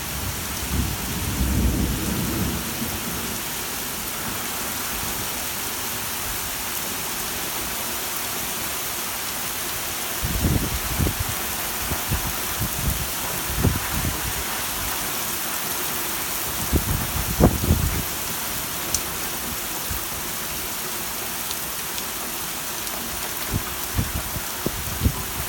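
Steady rain hiss of a summer thunderstorm, with low rumbles of thunder: a longer one a second or two in, others about halfway through and a cluster of short ones near the end.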